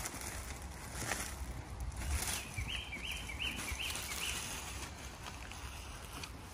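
Outdoor ambience: a bird gives a quick run of five or six short, identical chirps in the middle, over a low steady rumble and a couple of soft knocks.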